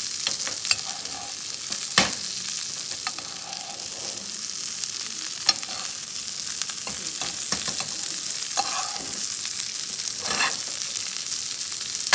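Breadcrumbed sardines sizzling steadily in butter in a frying pan over medium-low heat while the hot fat is spooned over them, with a few sharp clicks of the basting spoon against the pan.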